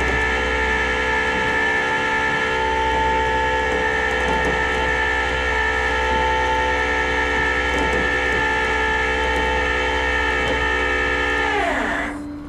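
Loud, steady machine whine made of several stacked tones, which drops in pitch and fades away about half a second before the end.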